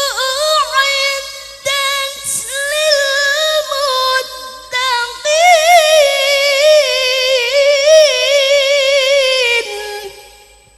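A qari chanting Quran recitation (tilawah) in a high voice, with long held notes and wavering melismatic ornaments, in three phrases. The last and longest phrase ends about ten seconds in.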